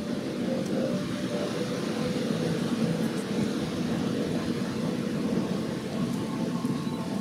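Steady low rumble of a cruise ship under way: engines and churning propeller wash, with a few faint steady hums over it.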